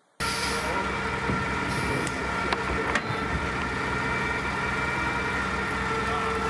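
A large engine idling at a steady pitch, a constant low hum that begins abruptly just after the start, with a couple of faint clicks about two and a half and three seconds in.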